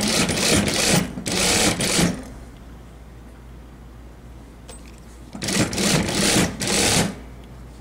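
Sewing machine stitching a seam through cotton blouse fabric in two short runs. The first lasts about two seconds, then it stops for about three seconds and starts again for a shorter run near the end.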